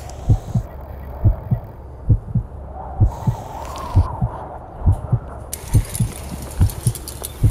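Heartbeat sound effect: steady low double thumps, lub-dub, about once a second, over a soft hiss. A high crackling rustle joins about two-thirds of the way in.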